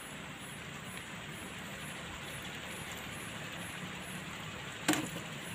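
Steady low hiss of fish grilling on a wire grate over charcoal, with one sharp click near the end.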